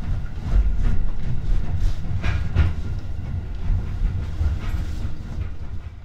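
Joban Line local commuter train running, heard from inside the carriage: a steady low rumble with sharp wheel clicks over rail joints, the loudest about two seconds in. The sound fades near the end.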